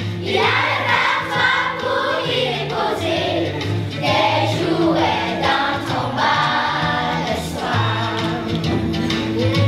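A children's choir singing a Christmas song together over musical accompaniment with held low bass notes.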